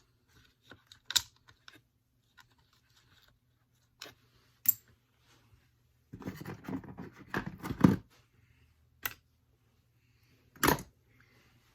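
Plastic and metal parts of a STIHL BG50 handheld leaf blower being handled and pulled apart by hand: scattered sharp clicks and knocks, with a couple of seconds of scraping and rustling about two-thirds of the way through.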